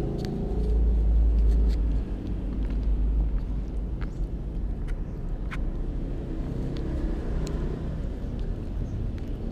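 A steady low rumble with scattered small clicks and smacks from a kitten chewing rice close to the microphone.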